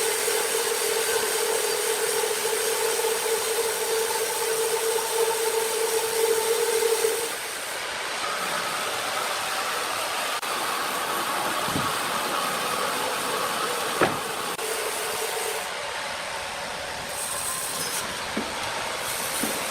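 Sawmill machinery running: a big saw gives a steady whine that drops away about seven seconds in, leaving a quieter, higher whine, with one sharp knock about fourteen seconds in.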